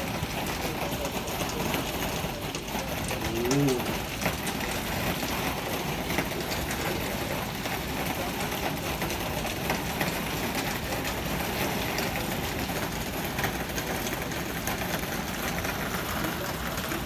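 Hail and heavy rain falling steadily: a dense hiss with many scattered sharp ticks of hailstones striking. About three and a half seconds in comes one short voiced call.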